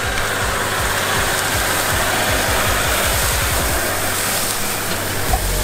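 Land Rover Discovery 3 driving slowly through tall grass and passing close by, its engine running and the grass brushing along the body, growing louder in the middle as it goes past. Background music plays along with it.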